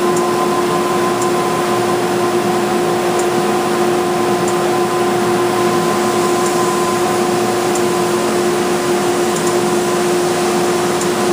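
Wide belt sander running steadily, a constant machine hum with a few faint high ticks.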